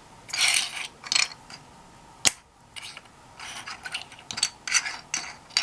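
Loose plastic keycaps clicking and clattering against each other as they are picked through by hand, with a short scrape early and one sharp click a little after two seconds in.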